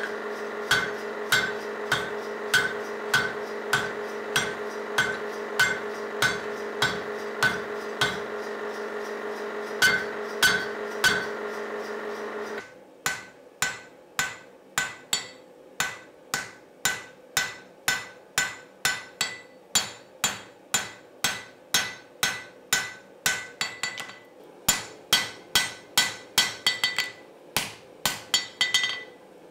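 Hand hammer striking a red-hot steel axe head in steady, regular blows, with a steady machine hum behind them that stops about halfway. The blows then fall on the anvil a little faster, each with a short metallic ring, and turn into a quicker run of strikes near the end.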